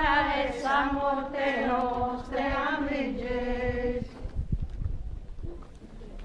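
A group of procession walkers singing a religious hymn together in long, held notes. The singing ends about four seconds in, leaving only low thumps and shuffling.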